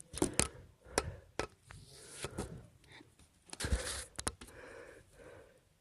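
Camera handling noise: a string of sharp clicks and knocks with rustling between them, as the camera is picked up and held.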